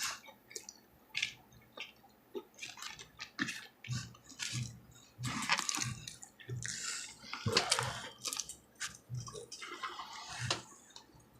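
Close-miked mouth sounds of someone eating: chewing and lip-smacking, a run of wet smacks and clicks at irregular intervals.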